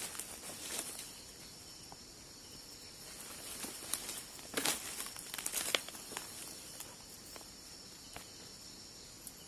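Steady high chirring of night insects such as crickets, with a few short rustles and crunches, like movement on dry leaves, scattered through it.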